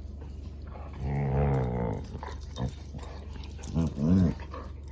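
Labrador retrievers play-growling: one long low growl about a second in, then two short rising-and-falling growly barks near the end.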